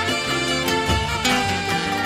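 Live pagode band music: an instrumental passage without singing, pitched instruments over a steady beat.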